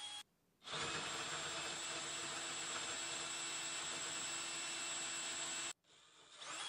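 Cordless drill running steadily with a hinge-cup boring bit cutting into a plywood cabinet door, a steady motor whine. The sound cuts out briefly just after the start and again near the end, then picks up again.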